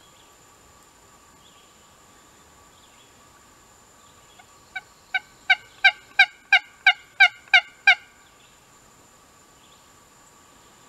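A series of about ten turkey hen yelps, roughly three a second, starting about halfway in. The first few notes grow louder and the rest are loud and even. This is the hen calling used to draw in a gobbler.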